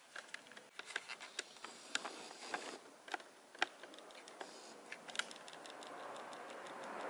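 Scattered light clicks and taps of handling, irregular and a few per second, with a faint hiss slowly swelling in the last couple of seconds.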